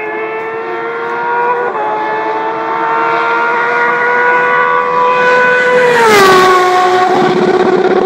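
Porsche 997 GT3 rally car's flat-six engine held at high revs flat out, its pitch climbing steadily as it approaches, then dropping sharply about six seconds in as it passes close by with a rush of air.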